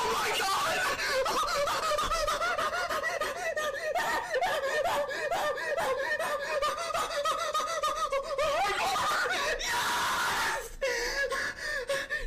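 A person's high-pitched, hysterical squealing and laughter, held almost without a break, with a harsher scream about ten seconds in. It stops abruptly at the end.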